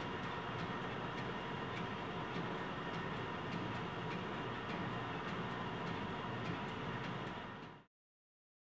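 Steady indoor room tone with a faint, regular ticking running through it, cutting off abruptly to silence near the end.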